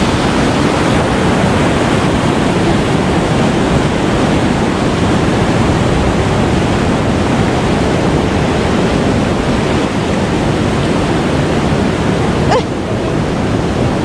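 Steady rushing of river water pouring over a weir as white water, easing slightly near the end.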